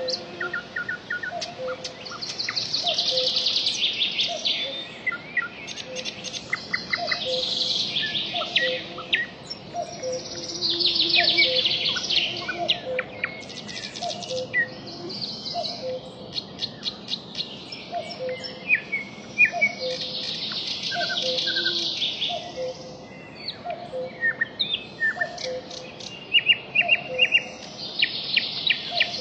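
Wild birds calling and singing together, with bursts of high, fast trilling every few seconds, scattered short chirps, and a low two-note call repeating about every second and a half.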